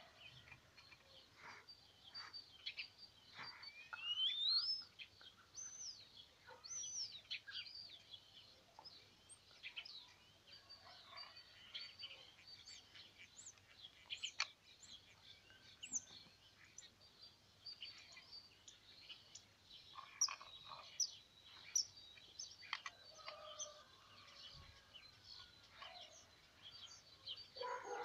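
Small birds chirping and calling, with many short high chirps scattered throughout and a louder rising whistled call about four seconds in.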